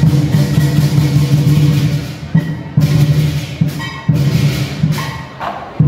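Lion dance music of drums and percussion, loud and dense at first, then thinning into separate sharp strokes after about two seconds.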